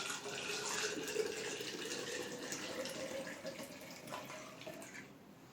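Thyme-and-honey syrup poured through a funnel into a jar: a steady trickling pour with a faint tone rising slowly as the jar fills. It tails off about five seconds in, and a short knock comes at the very end.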